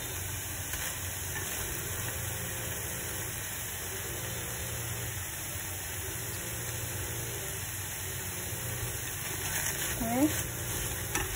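Peeled shrimp sizzling as they are stir-fried dry in a non-stick pan over high heat, stirred with a wooden spatula, while they firm up without giving off water. A few light scrapes and clicks of the spatula near the end.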